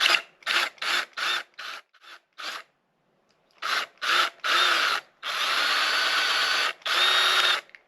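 Power drill boring into a small copper hanger, run in short rapid bursts, then after a pause in longer steady runs with a motor whine. The bit is too small for the hole he wants.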